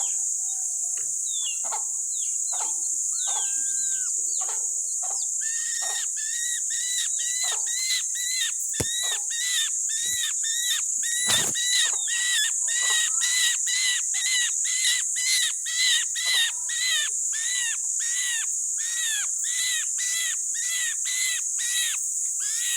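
A bird chirping repeatedly: scattered calls at first, then from about six seconds in a steady run of short arched chirps, about two a second, over a constant high hiss.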